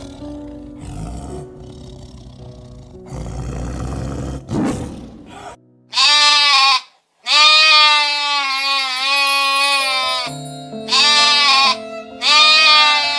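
An animal bleating four times, the calls loud and wavering, the second one long, over background music. Before them, rough, noisy animal calls sound.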